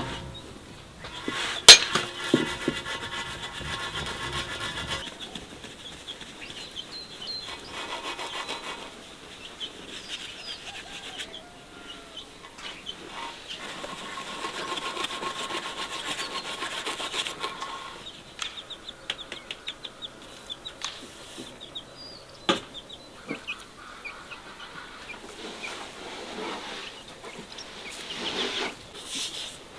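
Flour being sifted through a round sieve: a shaking, rubbing rustle, strongest in the middle of the stretch. Near the start there is a loud sharp knock that rings on briefly.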